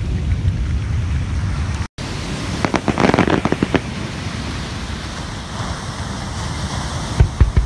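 Aerial fireworks shells going off: a quick string of crackling pops about three seconds in, then a couple of sharp booms near the end, over a steady hiss of surf and wind.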